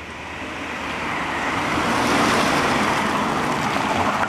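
BMW E46 330d's M57 inline-six turbodiesel driving past at speed on a gravel road, with engine and tyre-on-gravel noise. The sound builds to its loudest about two seconds in and stays loud as the car moves away.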